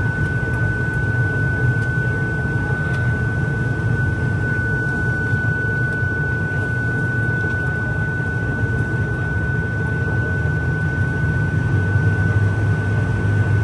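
ATR-72 turboprop engine and propeller at ground idle, heard inside the cabin: a steady low drone with a thin high whine held on one pitch. The drone grows a little stronger near the end.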